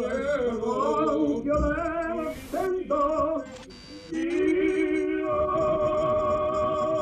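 Operatic singing: a trained voice sings phrases with wide vibrato. Two brief bursts of hiss break it in the middle, then a long held note.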